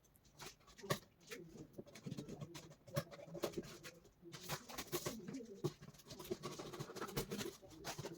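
A delivery package being opened by hand: plastic wrapping and packaging crinkling, rustling and tearing, with many small clicks and crackles.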